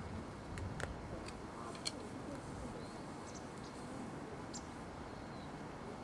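Steady outdoor background noise with a few sharp clicks and faint, short, high chirps.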